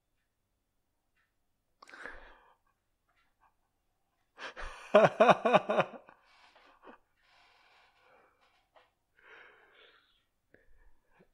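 A person laughing: a breath about two seconds in, then a burst of about five quick voiced pulses near the middle. Faint breathy murmuring follows.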